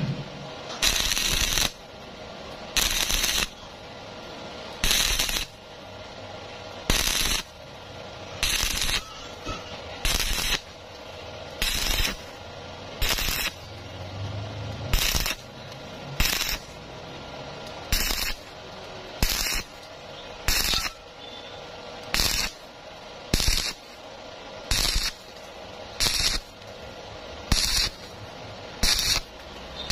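Stick-welding arc from a 2.0 mm E6013 rod at 70 amps crackling on thin angle iron. It is struck and broken again and again in short bursts of about half a second, roughly one every one and a half seconds, laying the bead in stitches.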